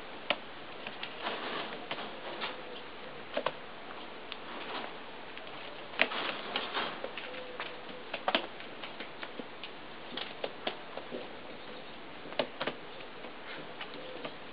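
Domestic pigeon pecking seeds off a cloth-covered table: irregular sharp taps and clicks, some louder single pecks among softer ones.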